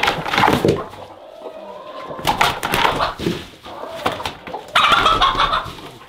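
Chickens squawking and clucking in three short, loud bursts, with knocks and scuffling from the hens being handled.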